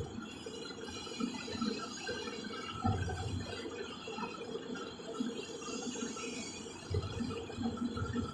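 A large excavator at work: its machinery runs steadily, with low thumps about three seconds in and again near the end.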